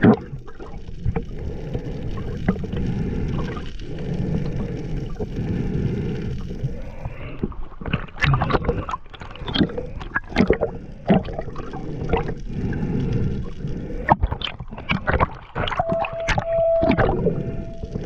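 Water moving around an underwater camera housing: a steady low rumble and gurgle, with a stretch of irregular clicks and knocks in the middle. A short steady tone sounds near the end.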